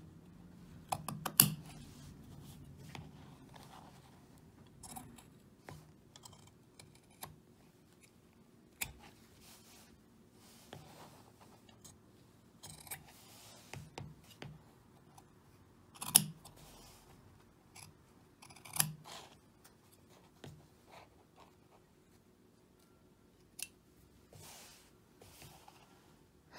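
Large fabric shears snipping through stitched layers of fabric and stiffener as seam allowances are trimmed and curves clipped: scattered short cuts with pauses, the loudest about a second in and two more around two-thirds of the way through.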